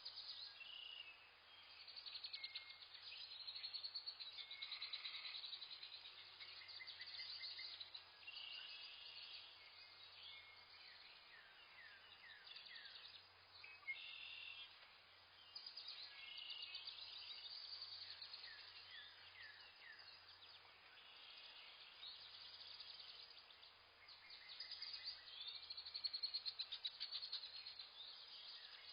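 Several wild birds chirping and calling at once: short high chirps, rapid trills and whistled notes overlapping with no break, over a faint steady hum.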